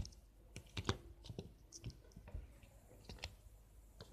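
Faint, scattered small clicks and taps from hands handling things close to the phone's microphone, irregular and without rhythm.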